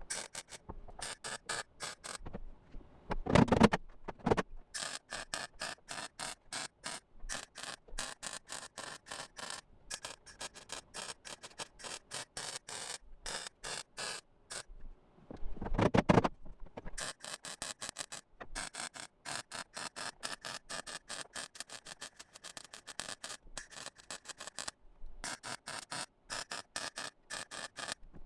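MIG welder crackling in short, rapid bursts with brief pauses, stitch-welding a sheet-metal floor patch with the heat set low and the wire speed raised to bridge gaps. Two louder, duller bumps come about three seconds in and again about sixteen seconds in.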